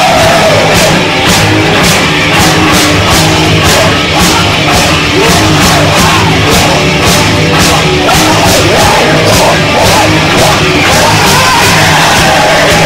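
Live punk-metal band playing loud: distorted electric guitar and bass, drums with a steady cymbal beat of about three hits a second, and a vocalist yelling and singing through a microphone.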